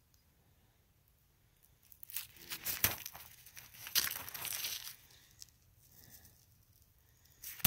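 Crunching and rustling of a hiker moving over loose gravel and rock, in irregular bunches, with a single sharp click near the end.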